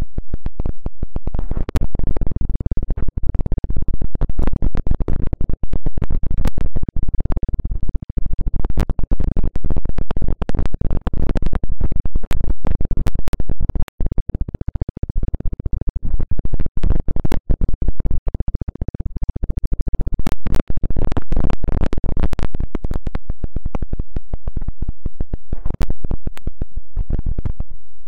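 Ear-massage-style rubbing and scratching directly on the ASMR microphone: a dense, unbroken stream of crackles over a heavy low rumble.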